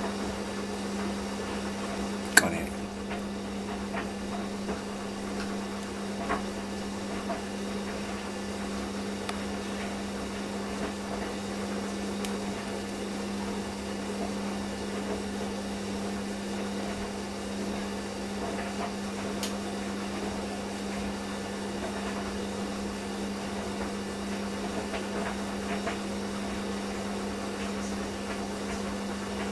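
Steady electrical hum over a low hiss, with one sharp click about two and a half seconds in and a few faint ticks.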